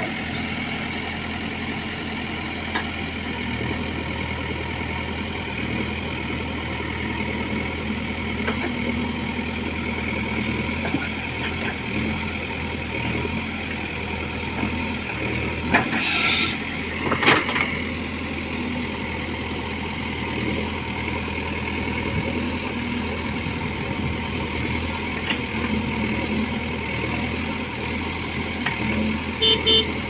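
JCB 3DX backhoe loader's diesel engine running steadily as the backhoe digs and swings its bucket, with scattered small clicks and two loud knocks about halfway through.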